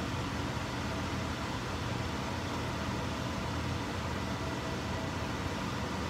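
Electric fan running: a steady, even rush of air with a faint motor hum.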